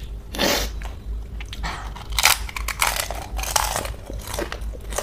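Crisp pani puri shells crunching between the teeth and being chewed close to the microphone, with about four loud crunches.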